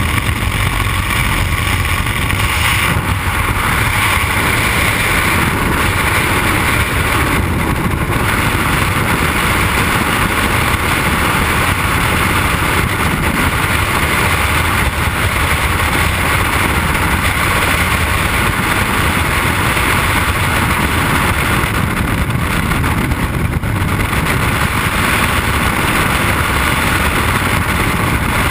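Freefall wind rushing over a helmet-mounted camera's microphone: a loud, steady roar of air.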